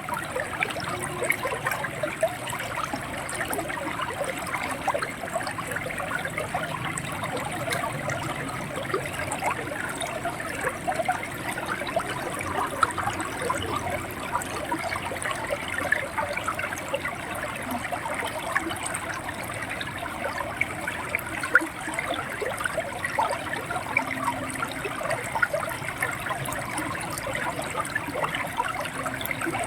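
River water flowing and gurgling over rocks: a steady, busy burble of small splashes.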